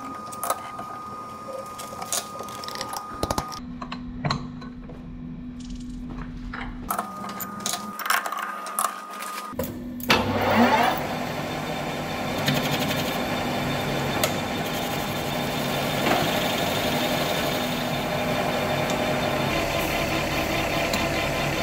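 Metal clanks and knocks as a steel bar is loaded and clamped in a lathe chuck. About ten seconds in, the Hafco TM-1740G centre lathe starts, its spindle speeding up with a rising whine, and then runs steadily.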